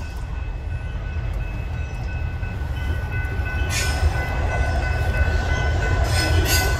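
Norfolk Southern mixed freight train rumbling past a grade crossing: a deep, steady rumble that grows gradually louder, with a steady high ringing tone above it and a few short sharp clanks.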